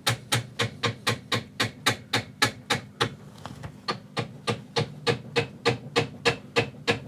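Small hammer tapping steadily on metal, about three to four light blows a second, driving a wrist pin out of a piston in a Subaru EJ20 boxer engine block.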